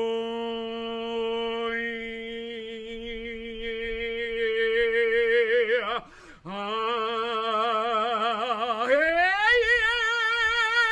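A man singing long, wordless held notes. A steady low note takes on vibrato, then comes a breath about six seconds in, a second long note, and near the end a glide up to a higher note sung with wide vibrato.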